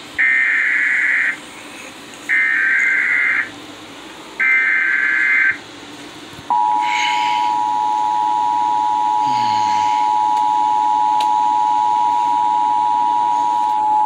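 Emergency Alert System tones played through a TV: three buzzy SAME header data bursts of about a second each, then the steady two-tone attention signal starting about six and a half seconds in and holding on. They mark the start of a broadcast tornado warning.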